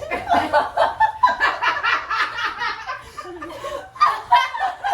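People laughing and snickering in short bursts throughout.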